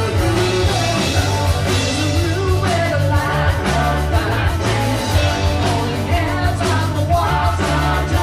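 Music: a song with singing over a steady, pulsing bass beat.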